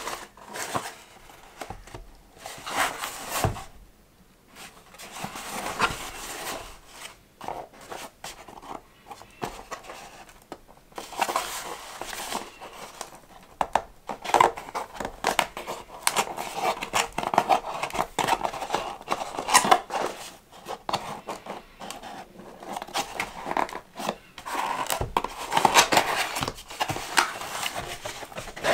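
Cardboard packaging being handled and opened by hand: the box is rubbed, tapped and scraped in irregular bursts, and its inner tray slides out of the outer sleeve.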